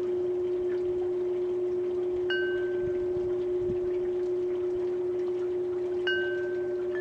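Two clear metallic chime strikes about four seconds apart, each ringing and fading over about a second, over a steady low hum.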